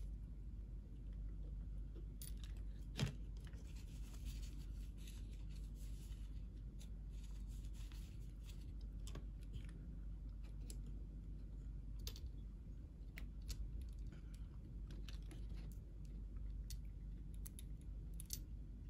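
Faint, scattered clicks of small metal and plastic parts of a Mercedes power seat switch being handled and pressed into the switch's plastic housing, with one sharper click about three seconds in, over a steady low hum.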